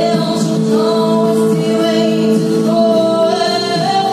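Girl singing into a handheld microphone, holding long notes, over an instrumental backing track.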